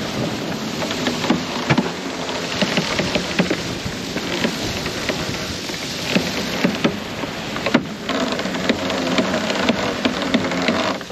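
Jib sheet being winched in on a sailboat: irregular clicking and rattling from the winch over a steady rush of wind and water.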